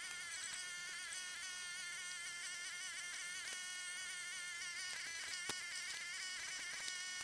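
Small gasoline engine of a towable backhoe running steadily, its pitch wavering slightly. Two sharp clicks are heard, about three and a half and five and a half seconds in.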